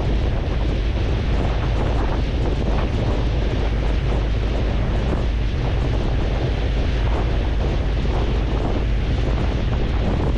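Steady wind buffeting the microphone over the rush of sea water, on a moving ferry.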